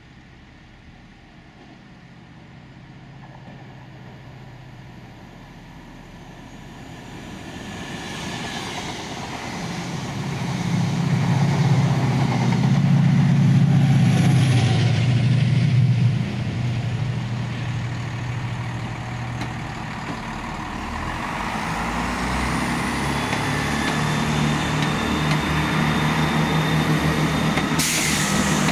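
Class 68 diesel locomotive passing close, its engine growing from a distant rumble to a loud deep running sound that drops off suddenly about sixteen seconds in. It is followed by a diesel multiple unit passing with engine and wheel noise and a steady high squeal, and a sudden sharp sound falling in pitch right at the end.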